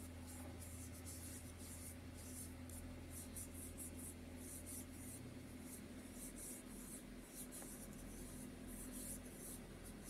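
Faint, irregular scratchy rubbing of fingertips dabbing and blending tint on the cheeks, several strokes a second, over a steady low hum.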